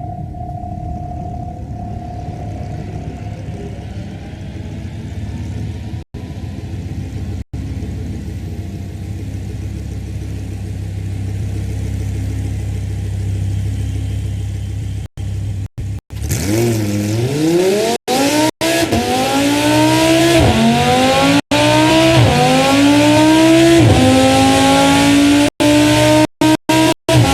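Audi R8's 5.2-litre V10 engine running on an engine test stand: a low, steady idle for roughly the first half, then revved again and again from about sixteen seconds in, each rev a rising climb in pitch, getting louder toward the end. The sound drops out to silence several times for a split second.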